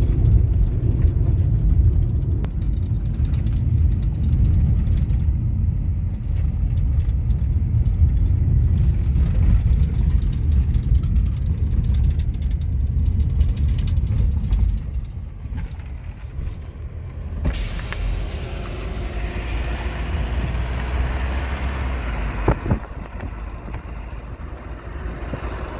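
A vehicle on the move: a loud, dense low rumble of engine and road noise that drops off about fifteen seconds in. A couple of seconds later a steady hiss takes over.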